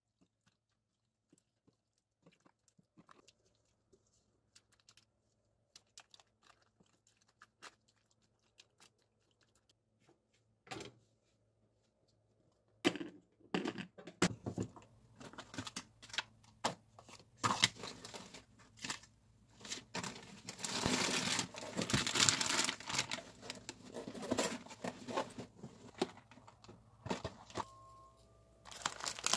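Faint scattered clicks and taps of kimchi and a plastic food container being handled, with a few sharper snaps about halfway through as the container's lid is fitted. Through the second half comes loud, continuous crinkling of plastic packaging, the sound of instant ramen packets being handled.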